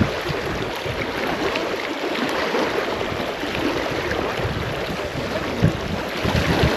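Wind buffeting the microphone, a steady rushing noise with an uneven low rumble, and a brief bump a little before the end.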